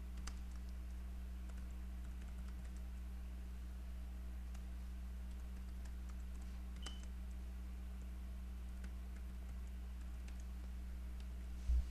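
Faint, scattered computer-keyboard keystrokes over a steady low hum.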